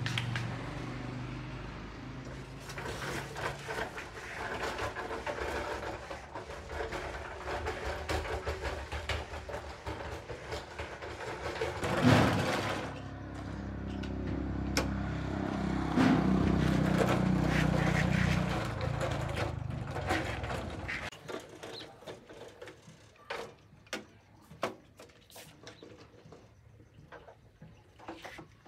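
A machine with a motor running steadily, with a loud bang about twelve seconds in, then cutting off abruptly about three-quarters of the way through. Scattered light knocks and clicks follow.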